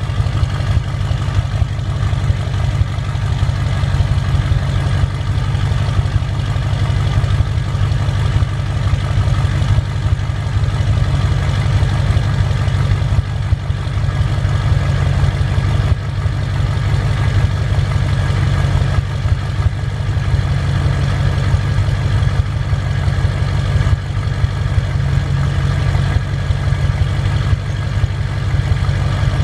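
The 6.0L Power Stroke turbo-diesel V8 of a 2007 Ford F-350 idles steadily shortly after a cold start, with a deep exhaust note. The owner suspects an EGR or wastegate fault behind a low-boost code.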